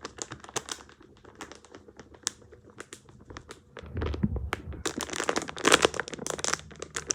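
Thin plastic crinkling and crackling in the hands, in quick irregular crackles that grow denser and louder in the second half, with a dull handling bump about four seconds in.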